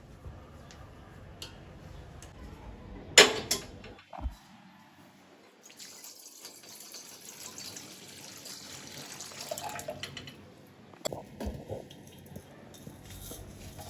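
Water running from a kitchen tap for several seconds, with a sharp click before it and a few knocks after it.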